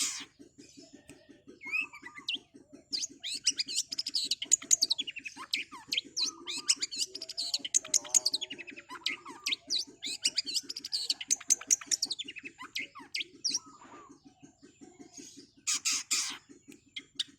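Long-tailed shrike (cendet) singing a fast, rolling song of rapid, varied chattering notes, with a harsh rasping burst at the very start and another near the end. A steady, fast low pulsing runs underneath.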